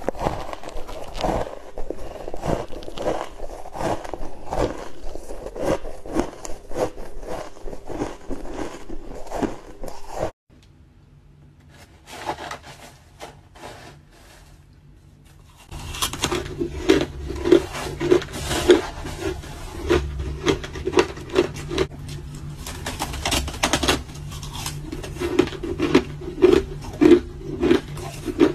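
Hard crushed ice crunching between the teeth close to the microphone, a rapid run of crisp crunches. About ten seconds in it drops to a quiet stretch with a light scrape of a metal spoon in the ice. From about sixteen seconds loud, rhythmic chewing crunches resume, two or three a second.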